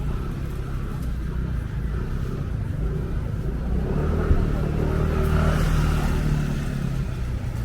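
Street traffic: a steady low rumble, with one vehicle's engine passing close and loudest from about four to six and a half seconds in.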